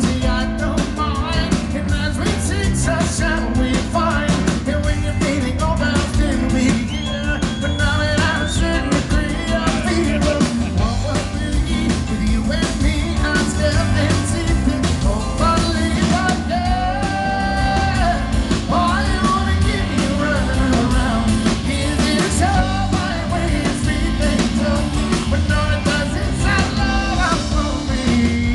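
Live rock band playing, with a harmonica taking the lead over drums, bass guitar and keyboards. The lead line bends and slides in pitch.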